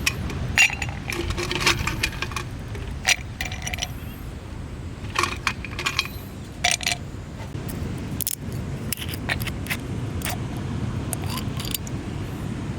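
Small metal objects clinking and jangling with short ringing tones, in irregular clusters as they are handled, over a steady low background noise.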